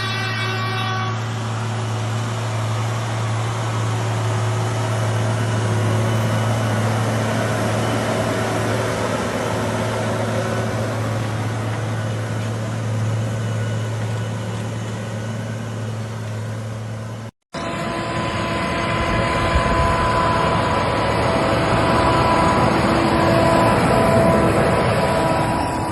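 Heavy machinery engine running steadily with a low hum. About seventeen seconds in there is a sudden cut to a different, noisier machine running with higher whining tones.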